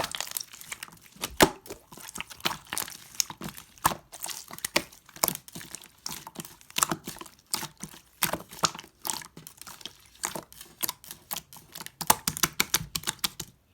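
White slime being squeezed, stretched and pressed by hand, giving off a quick, irregular stream of sticky clicks and small air-pocket pops that stop abruptly near the end.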